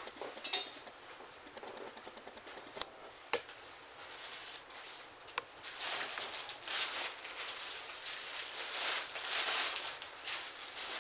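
Clear plastic bag rustling as it is handled and opened, loudest over the second half, after a few sharp knocks in the first few seconds.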